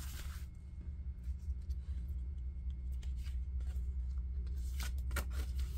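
Paper and cardstock tags rustling and brushing against each other as they are handled and turned over, with short rustles near the start, about three seconds in, and again near the end, over a steady low hum.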